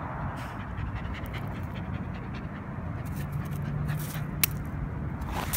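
Shiba Inu panting, with one sharp click about four and a half seconds in.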